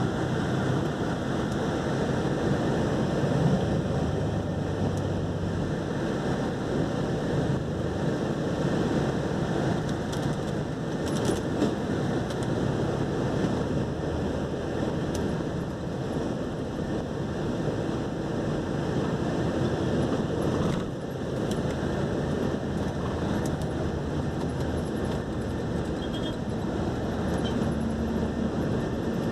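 An engine running steadily under a continuous rushing noise, heard from on board, with a brief dip about two-thirds of the way through.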